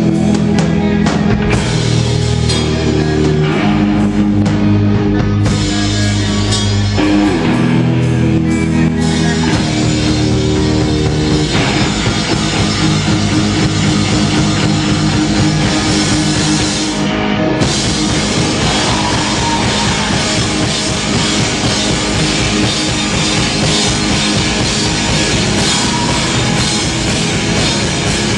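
Hardcore punk band playing live: distorted guitars and bass ring out long held chords, changing every couple of seconds, then about eleven seconds in the drums come in with a fast beat under the full band.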